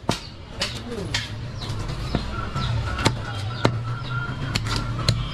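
Heavy butcher's knife chopping through goat ribs onto a wooden chopping block: a quick, irregular series of sharp knocks.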